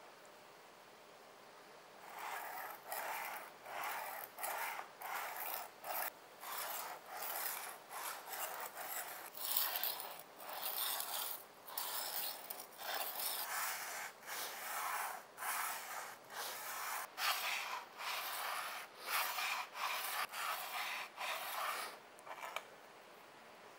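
Hand-held abrasive block rubbed back and forth along a steel kitchen knife blade during sharpening: a gritty scraping in even strokes, about one and a half a second, starting about two seconds in and stopping near the end.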